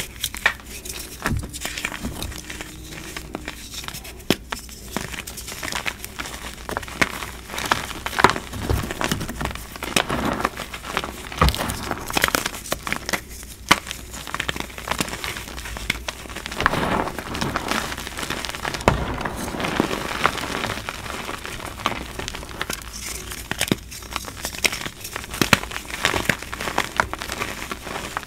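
Hands crushing and squeezing crumbly chunks of reformed gym chalk in loose chalk powder: dense, irregular crunching and crackling.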